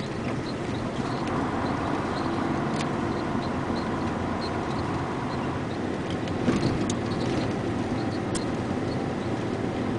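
A vehicle driving along a narrow paved road: steady engine and tyre noise, with a few faint clicks.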